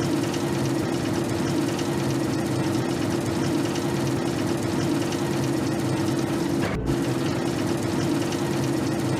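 Small electric motor and gears of an RC model vehicle running steadily with a constant humming whine. The whine breaks off for a moment about two-thirds of the way through, then resumes.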